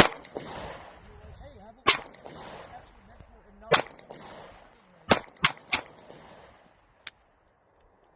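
Gunshots: three single shots about two seconds apart, then three quick shots about a third of a second apart, each with a short echo trailing off, and a fainter shot a little later.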